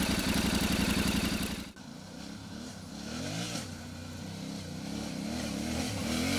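Motorcycle engine idling with a steady, even pulse, cutting off suddenly about two seconds in. Then a motorcycle rides closer on a dirt track, its engine note rising and falling with the throttle and growing louder as it approaches.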